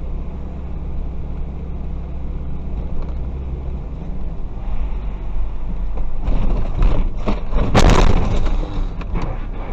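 Dashcam audio of a vehicle driving on a wet road: a steady low rumble of road and engine noise. About six seconds in it turns to a rising clatter and then a loud crash of impacts near the end, as the vehicle collides.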